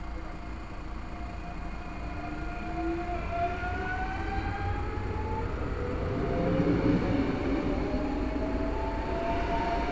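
Z 24500 double-deck electric multiple unit passing over a level crossing. Its traction motors whine in several tones that climb steadily in pitch as it accelerates. Wheel and rail rumble builds to its loudest a little past the middle.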